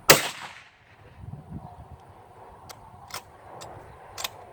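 A single rifle shot from a .223 Remington 700 BDL bolt-action rifle, a sharp crack with a short echoing tail, right at the start. A few sharp metallic clicks follow over the next seconds as the bolt is worked to eject the spent case and chamber another round.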